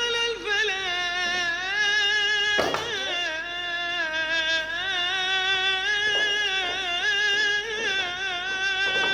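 Background music: a high voice sings long, wavering held notes.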